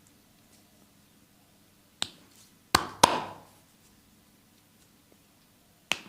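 Sharp percussive hand strikes of a massage: one about two seconds in, a quick pair about a second later, and another near the end, each ringing briefly in a small room.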